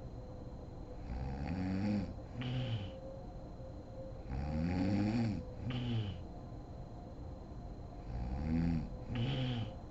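A sleeping woman snoring heavily: three breaths, each a longer snore followed by a shorter one, about four seconds apart.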